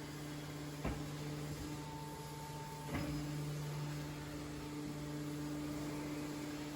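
Scrap metal baling press running with a steady electric hum, broken by two sharp knocks about one and three seconds in.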